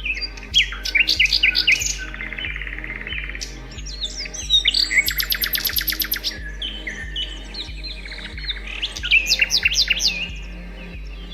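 Several songbirds chirping and singing over one another in short whistled notes, with fast buzzy trills about two seconds in and again about five seconds in. A low, even pulse runs underneath.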